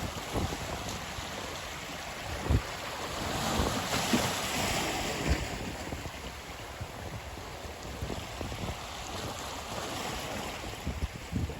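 Ocean surf washing ashore, the rush swelling and fading about four seconds in, with wind buffeting the microphone in low gusts.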